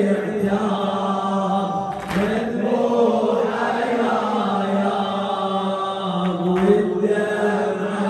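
Men's voices chanting a Shia mourning lament (latmiya), a reciter on a microphone together with the gathering, in long held lines at a steady level. A few sharp strikes cut through it, about two seconds in and again about six seconds in.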